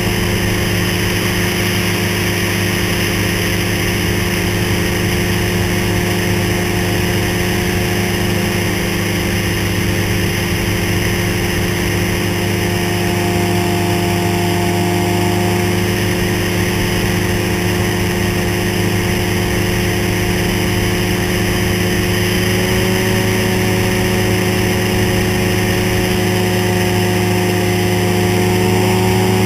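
Ultralight trike's engine and pusher propeller running steadily in flight, the pitch edging up a little near the end.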